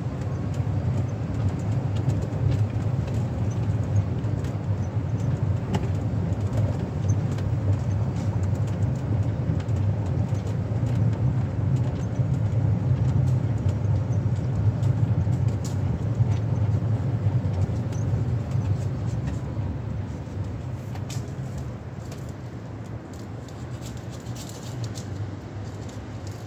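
Steady low rumble of distant city road traffic, easing slightly about three quarters of the way through.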